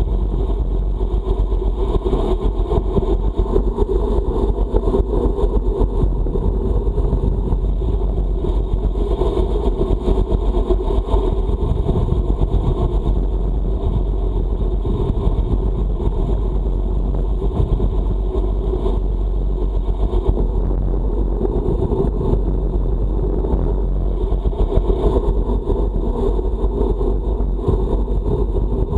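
Steady wind rumble buffeting the microphone of a camera riding on a moving road bike, in a strong headwind.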